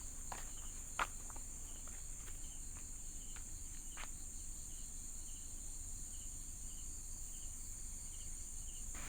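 Steady high-pitched chorus of night insects, crickets, with a few faint clicks, the sharpest about a second in.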